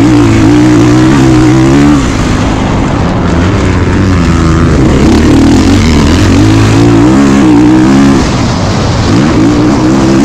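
2022 Kawasaki KX450's single-cylinder four-stroke engine running hard under throttle. The engine note drops about two seconds in, climbs again, dips near eight seconds, then picks back up.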